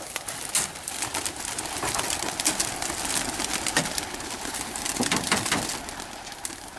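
Tall grass rustling and swishing against the legs of someone wading through it on foot, a dense run of brushing and crackling sounds.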